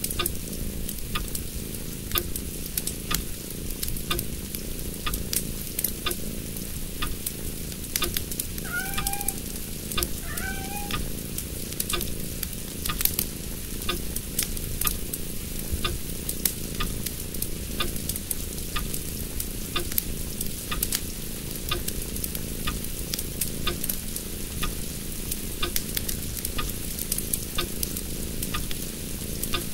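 Origami paper being creased and handled close up: a steady crackly rustle with many small clicks. Near the middle come two short rising chirps.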